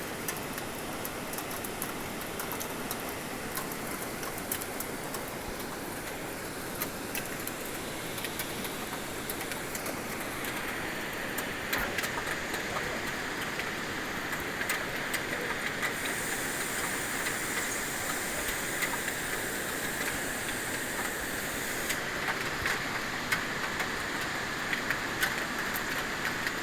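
Heavy rain falling, a steady hiss dotted with the ticks of individual drops striking a surface, growing a little louder and brighter about ten seconds in.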